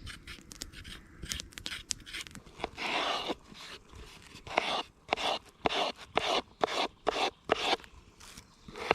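Folding-knife blade scraping the skin off a carrot in repeated strokes: one longer scrape about three seconds in, then short strokes about twice a second.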